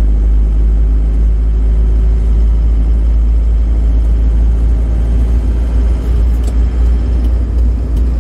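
Isuzu Panther diesel car cruising on a motorway, heard from inside the cabin: a steady, loud low rumble of engine and road noise.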